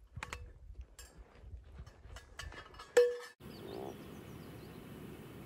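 Scattered clicks and knocks, with one sharp ringing clink about three seconds in. After a sudden cut comes a steady chorus of frogs croaking.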